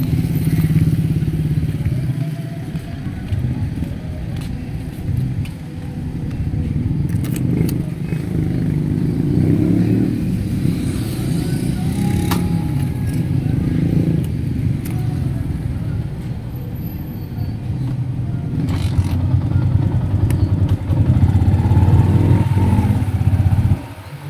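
Small motorcycle's engine running while riding along a street, with road and wind noise; the engine note changes in pitch as the throttle varies.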